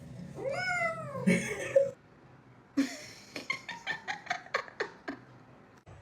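A cat meowing: one drawn-out call that rises and then falls in pitch, taken as the cat "saying no". About a second later comes a quick run of short, sharp sounds, several a second, for a couple of seconds.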